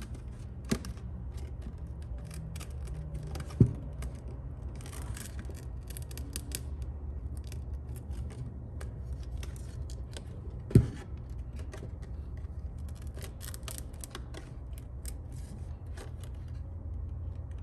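Irregular small clicks and crackles of a phone's glued back glass being pried off: the adhesive tape and plastic coming apart. A steady low hum runs underneath, and there are two low thumps, one about three and a half seconds in and one near eleven seconds.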